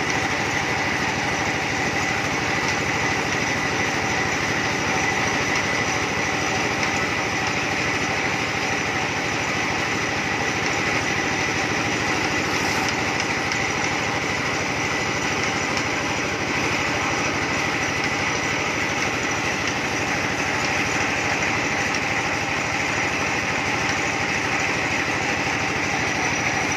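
Small engine running steadily at a constant speed, with a steady whine, no change in speed or load throughout: typical of the power unit of a small rotary-table well-drilling rig.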